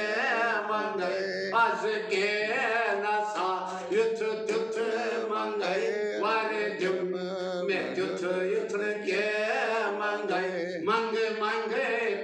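A man singing a Kashmiri devotional song solo, in a melismatic, chant-like style with long held, bending notes, over a steady low drone.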